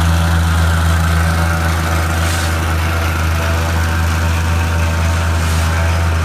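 Gas-engine power broom running steadily at a constant speed, used to sweep infill into artificial turf.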